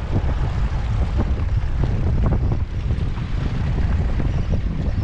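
Wind buffeting the microphone: a loud, uneven low rumble with many short slaps and knocks mixed in.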